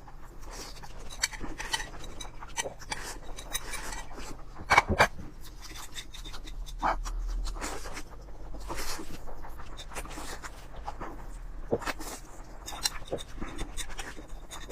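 Close-up mouth sounds of a person eating noodles: irregular slurping and chewing, with a louder burst about five seconds in.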